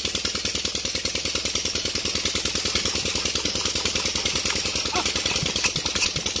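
Old Petter diesel engine running with a fast, even beat of firing strokes, a flame held at its air intake to help it run from a cold start. A few sharper knocks come near the end.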